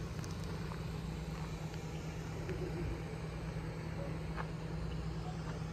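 Portable generator running at a steady speed, a low even hum.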